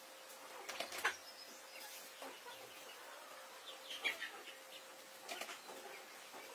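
Chickens clucking now and then, with a few light knocks, over a steady background hiss.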